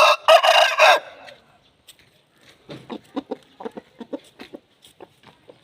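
Aseel chickens calling: a loud, harsh squawk lasting about a second at the start, then a run of quick, low clucks, about three or four a second, that trail off near the end.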